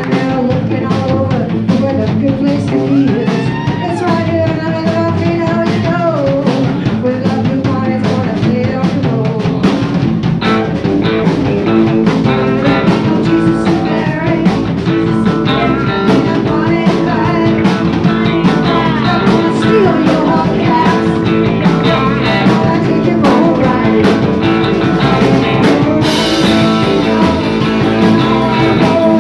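Live rock band playing loud: electric guitars, bass guitar and drum kit, with women singing. The cymbals get brighter near the end.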